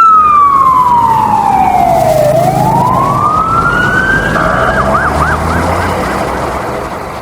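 Ambulance siren in traffic. It wails slowly down in pitch and back up, then switches about four seconds in to a fast yelp of quick up-and-down sweeps, over a low rumble of traffic. The sound fades out near the end.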